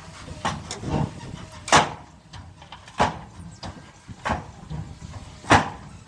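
A series of sharp, irregular knocks or clacks, about seven in six seconds, the loudest nearly two seconds in and near the end, over a faint low rumble.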